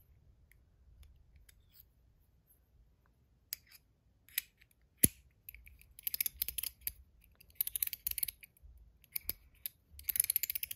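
Metal Comma 2.0 fidget coin being worked by hand: a few single clicks, the sharpest about five seconds in, then bursts of rapid ratchet clicking as its parts are twisted against each other.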